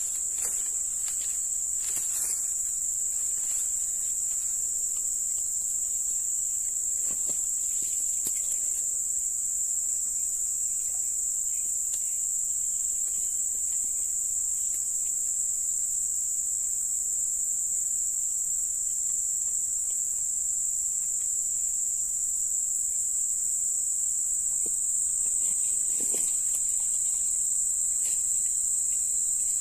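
Insects droning steadily at one high pitch, with a few faint clicks.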